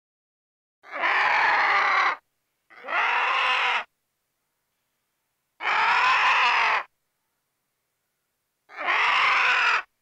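An animal calling four times: harsh, drawn-out pitched calls about a second long each, separated by silent gaps.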